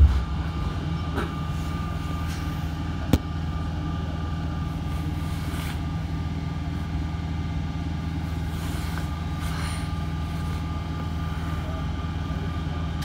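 Z20500 double-deck electric train standing still at a platform, its onboard equipment humming steadily in a low, even drone with a few fixed tones. A sharp click comes right at the start and another about three seconds in.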